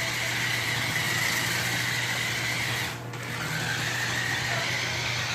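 Remote control car's small electric motor whining steadily as it spins the tape-covered rear wheels in donuts. It drops out briefly about three seconds in, then picks up again and climbs back.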